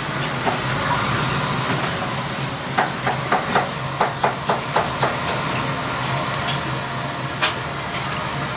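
Steady hiss of a restaurant kitchen with a charcoal grill going, over a low hum. A quick run of light clicks and clatter comes about three seconds in, and one more sharp click near the end.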